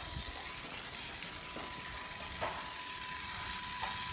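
Small battery-powered electric motor of a motorised Thomas toy train running: a steady thin whine over a whirring hiss, with a few light taps as it is handled and set down.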